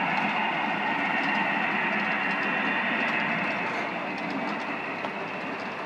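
Model diesel train rolling across the layout: a steady motor hum and wheel noise, with faint clicks of wheels over the rail joints, fading near the end as it moves away.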